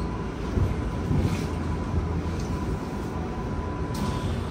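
Tokyu 5050 series electric train heard from inside the car as it rolls slowly to a stop at a station: a steady low rumble with a thin steady tone that fades out about four seconds in, and a sharp click near the end.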